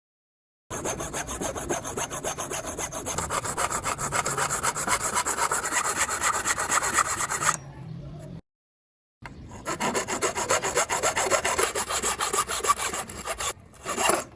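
Handsaw cutting through wood in fast back-and-forth strokes, about four or five a second, in two stretches with a sudden break between them. A short knock comes near the end.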